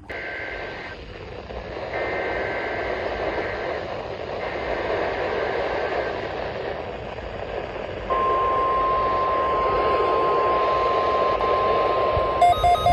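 NOAA Weather Radio broadcast heard through heavy static: three short bursts of the SAME digital header tones, then about eight seconds in the steady 1050 Hz warning alarm tone starts, as sent during the weekly test. Just before the end a pulsing electronic beeping alert joins in.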